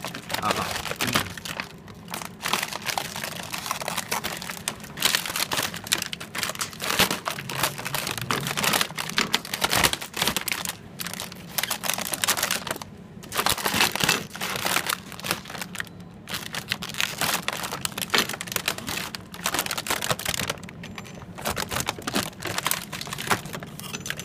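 Printed sublimation transfer paper and film crinkling and rustling in irregular crackles as gloved hands peel them off heat-pressed phone cases and crumple them, over a low steady hum.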